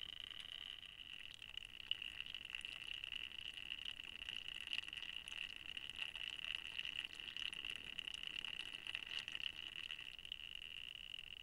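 Steady high hiss from a trail camera's own recording circuit, with faint scattered clicks and scuffs of an animal moving right against the camera.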